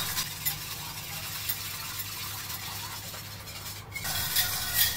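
Wire whisk stirring beaten eggs in a bowl while hot milk and cream are poured in: a steady swishing and splashing of liquid, with a brief pause just before the end and then a few livelier strokes.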